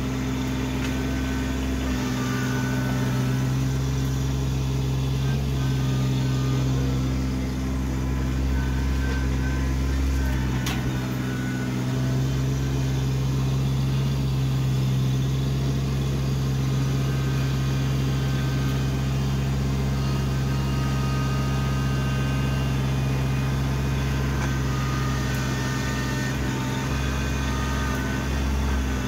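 Kubota compact tractor's diesel engine running at a steady speed while the front loader works, with a low rumble that swells and drops a few times.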